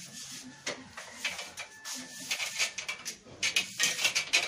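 Rustling and scraping as hands work the bassinet's cloth ties against the wooden cot rails. It comes as a run of short, irregular rubs and scrapes that grows thicker and louder near the end.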